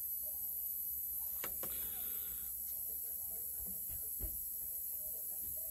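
Quiet steady hum and hiss in a small room, with a few faint light taps from a plastic scale model and brush being handled.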